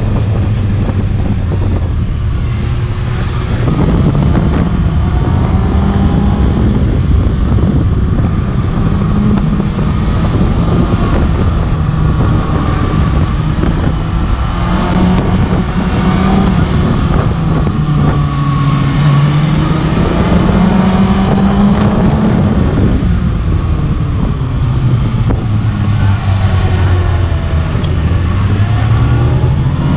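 Kawasaki ZX-6R 636 inline-four engine on track, revving up hard and dropping back again and again as it accelerates out of corners and closes off into the next.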